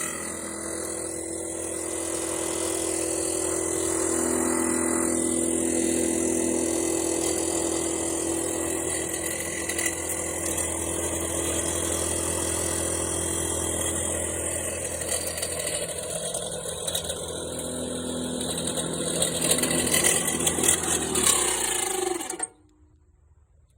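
Mowrator mower's blade motor running at speed with several steady whining tones, then winding down in pitch and stopping about 22 seconds in. This is the start-up noise the owner finds unusual.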